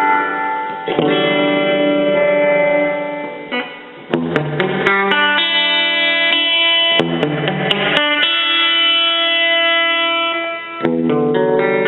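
Electric guitar played through a Roland Jazz Chorus amplifier: sustained chords left to ring, a new chord struck about every three seconds, with a few quick strums around four and seven seconds in.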